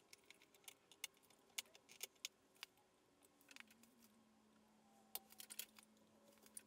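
Faint, scattered small plastic clicks and rattles as the side-mirror glass of a BMW G20 3 Series is prised off its clips and pulled away from the mirror housing on its wires.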